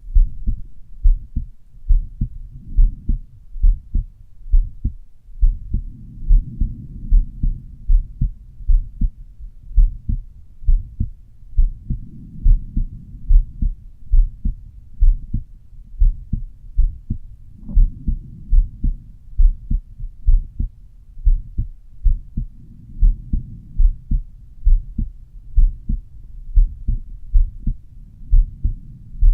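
Human heart sounds from the pulmonary (pulmonic) area: a regular two-part lub-dub at about 70 beats a minute. Under the beats is a soft low rush that swells and fades every five to six seconds.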